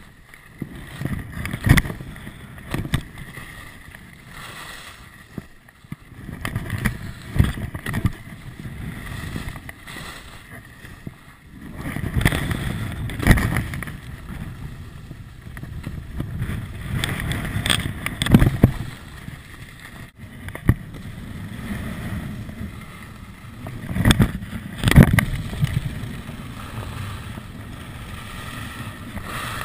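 Skis running and scraping over packed snow, with wind rushing over the microphone. Sharp thumps and knocks come every few seconds, as from landings and edge hits.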